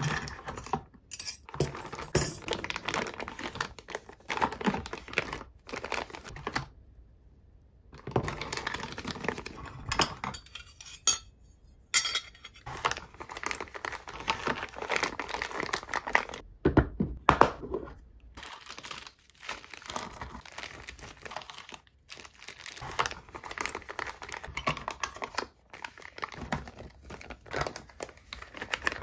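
Plastic parts bags crinkling and small metal engine-kit parts clinking against each other and a plastic compartment box as they are handled and lifted out, in irregular bursts with a few brief silent gaps.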